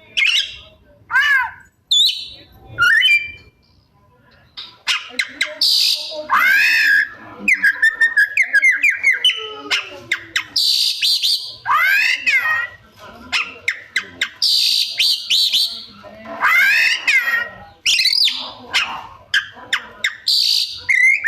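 Oriental magpie-robin (kacer) singing a loud, varied song. Quick whistled notes swoop up and down among harsh, raspy bursts, packed with mimicked phrases (isian).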